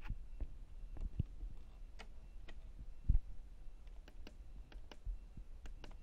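Irregular clicks of the push buttons on a Miele W5964 washing machine's control panel as the programme menu is scrolled, with a duller, louder knock about three seconds in.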